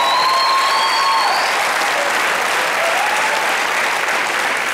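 Studio audience applauding steadily, with a drawn-out cheer rising over the clapping in the first second and a half and a shorter one about three seconds in.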